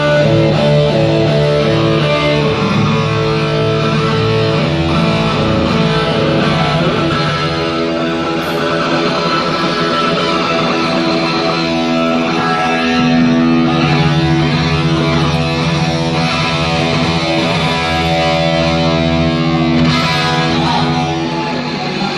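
Heavy metal band playing live, loud: distorted electric guitar from a Flying V over bass guitar and drums, with no singing.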